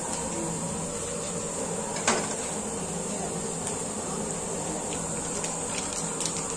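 Steady background hiss and hum, with one sharp knock about two seconds in and a few faint clicks later on.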